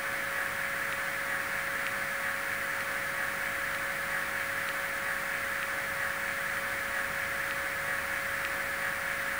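Steady stationary sound from a DCC sound decoder playing through the small speaker in the lead car of an N-scale 115 series EMU model: an even hiss with a steady hum tone under it and a few faint ticks.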